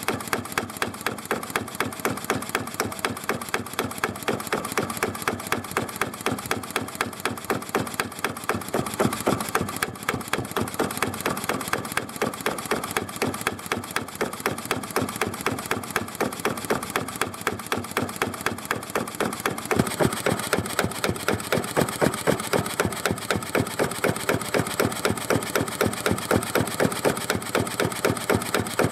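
Yanmar NK2 single-cylinder diesel stationary engine idling steadily, each firing stroke a sharp knocking 'kan' in an even beat. It runs a little louder from about twenty seconds in.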